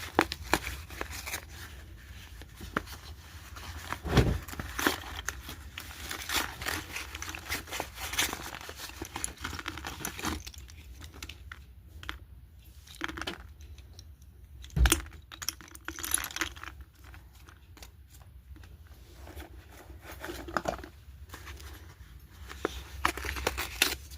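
Paper and plastic packaging of a slate pencil pack crinkling and tearing as it is handled and opened, with many small clicks and rustles and two louder knocks, about four seconds in and again near fifteen seconds.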